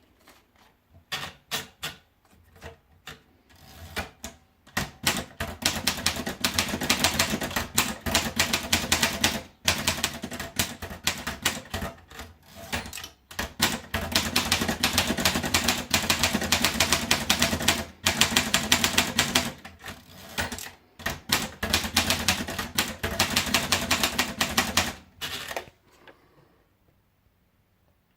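Rheinmetall KsT manual portable typewriter being typed on: a few slow, separate keystrokes at first, then fast continuous typing for about twenty seconds, broken by three brief pauses. The typing stops near the end.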